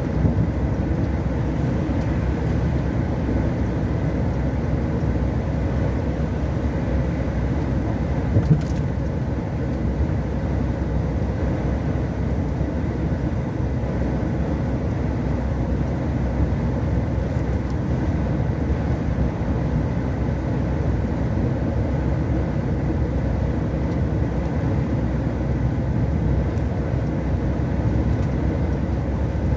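Steady engine and tyre noise heard from inside a vehicle cruising at highway speed, with one short click about eight and a half seconds in.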